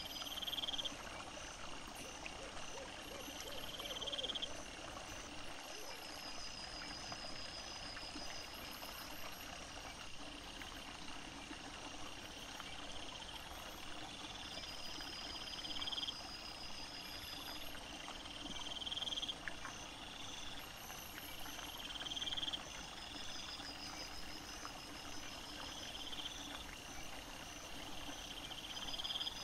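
Night chorus of small calling animals: a short rising trill repeats every two to three seconds over steady, evenly ticking higher chirps and a constant hiss.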